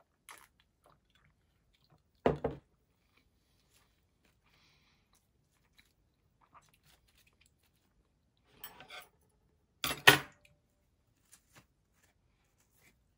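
Four brief, sudden noises with quiet between: a small one at the very start, a loud one about two seconds in, a short cluster near nine seconds, and the loudest around ten seconds.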